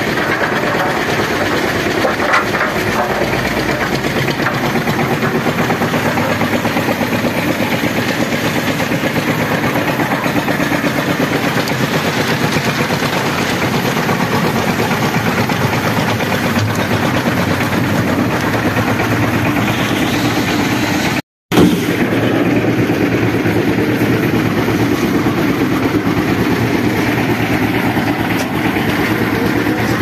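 Portable concrete mixer with lift hopper running steadily. The sound drops out for an instant about two-thirds of the way through.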